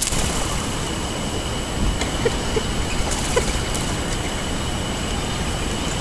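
Steady outdoor background hum, with a thin steady high tone over it and a few faint, short bird chips in the middle.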